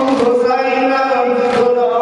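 A man chanting a Shia mourning lament (noha) in a long, held melodic line. Two slaps of chest-beating (sineh zani) come through, one near the start and one just past halfway.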